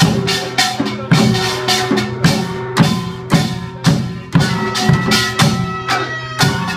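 Samulnori percussion ensemble playing: janggu hourglass drums and a buk barrel drum struck in a fast, dense rhythm with strong accents about twice a second, over the ringing clang of small gongs.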